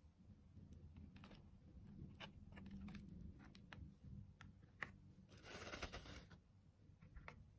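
Faint handling noises: scattered small clicks and taps, with a brief rustle of packaging a little past the middle.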